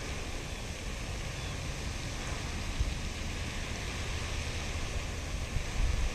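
Steady outdoor noise: wind rumbling on the microphone under an even hiss.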